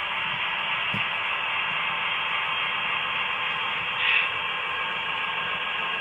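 Steady, tinny radio static hiss with a short louder squawk about four seconds in.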